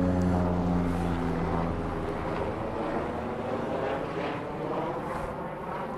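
Steady engine hum that fades away over the first two seconds, leaving a wavering rushing noise.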